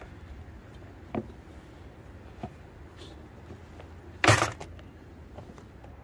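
Handling noises from pitching a nylon tipi tent: two light knocks, then a louder short burst of rustling about four seconds in, over a low steady background.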